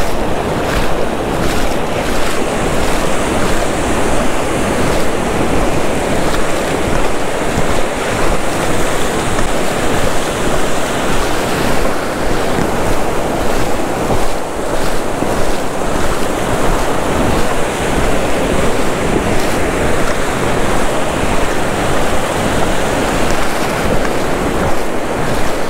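Ocean surf breaking and washing up over the sand, a steady loud rush of water, with wind buffeting the microphone.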